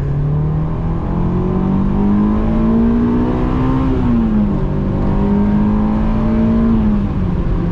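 Honda S2000's JDM F20C four-cylinder engine pulling under acceleration, heard from inside the car with the top up. The revs climb steadily, fall sharply about four seconds in as it shifts up, then pull steadily again and ease off a little near the end.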